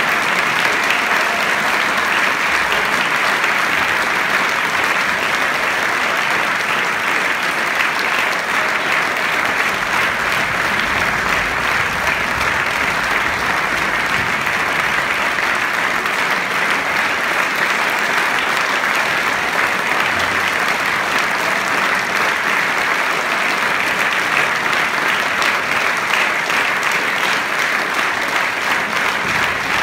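A large audience applauding, a dense, even clapping that holds steady without a break.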